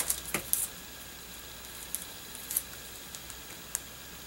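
A sheet of puffy stickers in a thin plastic sleeve being handled and turned over: a brief flurry of crinkling at the start, then a few faint light ticks.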